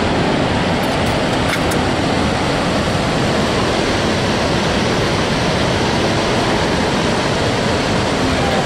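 Steady rush of Niagara Falls' falling water, an even, unbroken noise.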